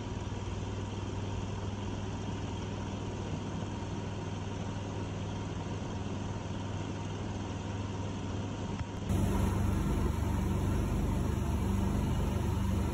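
Long-tail mud motor (Mud-Skipper) driven by a 22 hp Predator V-twin engine running steadily at speed, pushing a jon boat; the engine is still being broken in. The sound jumps abruptly louder about nine seconds in and carries on steady.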